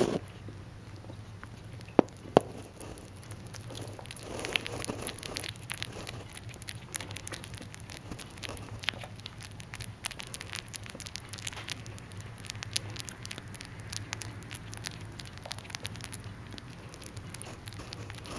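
Lop-eared rabbit chewing banana close to the microphone: a rapid run of tiny clicks and crackles from its teeth, growing denser about four seconds in. Two sharp clicks stand out about two seconds in, over a low steady hum.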